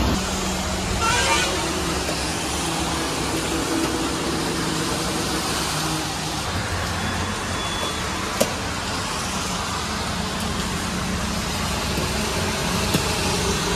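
Steady road traffic noise, vehicles running by, with a single sharp click about eight seconds in.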